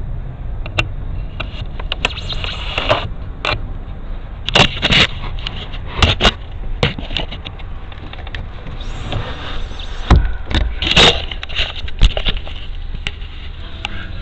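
A motor vehicle's engine idling with a steady low rumble, overlaid by a dozen or so irregular short, sharp squeaking or scraping noises.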